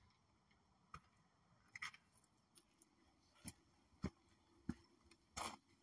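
Near silence broken by faint, sharp dry clicks at uneven intervals, roughly one a second.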